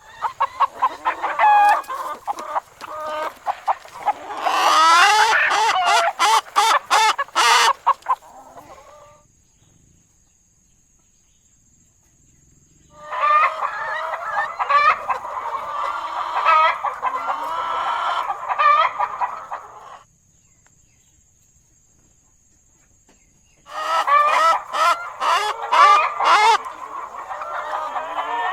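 Chickens clucking and calling, many quick calls overlapping, in three separate stretches with short silent gaps between them.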